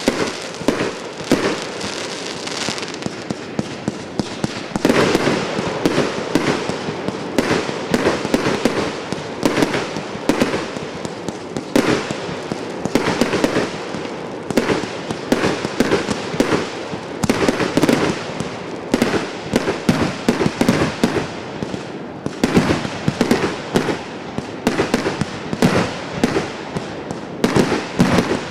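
"Golf Club" consumer firework cake firing a continuous rapid barrage of shots and bursts, several bangs a second with crackling between them.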